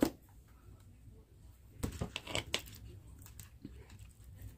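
A few light clicks and clinks of small hard objects being handled, with a cluster of them about two seconds in, over quiet room tone.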